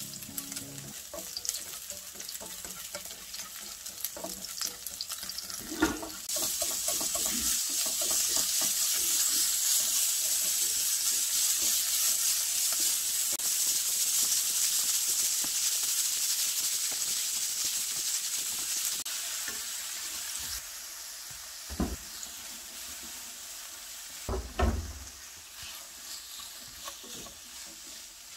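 Oil sizzling in a nonstick wok as scallion pieces are stir-fried with wooden chopsticks. About six seconds in there is a knock and the sizzle jumps much louder as ground pork goes into the pan, easing off after about twenty seconds. A few more knocks come near the end as diced pumpkin and onion are tipped in.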